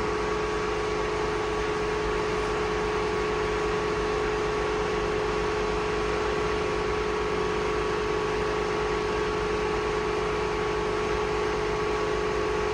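Steady machine hum, like a ventilation fan or motor running, with a constant mid-pitched tone and a fainter higher one over even background noise.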